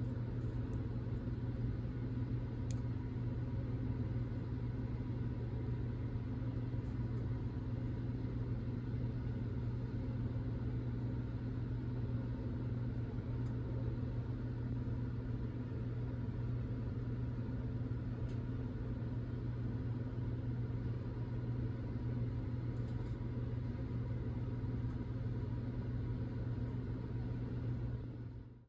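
A steady low mechanical hum with a few faint ticks, cutting off abruptly at the end.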